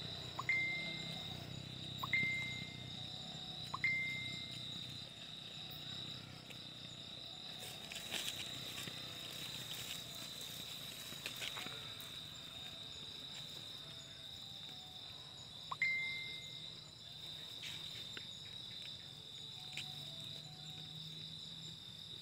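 Insects, likely crickets, trilling steadily at a single high pitch. Over the trill come four short ringing pings in the first four seconds and one more about 16 seconds in, each a clear note that dies away within half a second.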